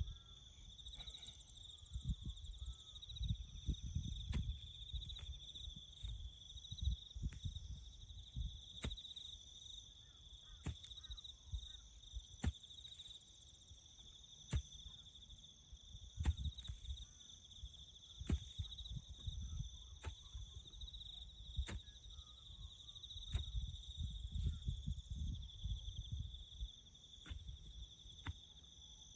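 Crickets chirping in a steady high trill, with a sharp click about every two seconds and irregular low rumbling underneath.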